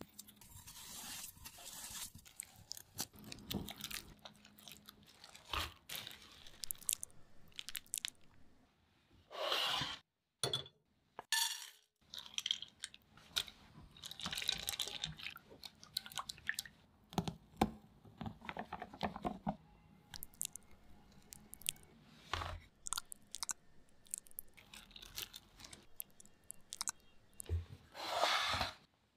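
Close-miked food preparation sounds: sugar poured over raspberries, a silicone spatula stirring white chocolate chips and cream in a pan, and a silicone mould handled on a wooden tray. Many short crisp scrapes, rustles and taps, broken by a couple of brief silent gaps about a third of the way in.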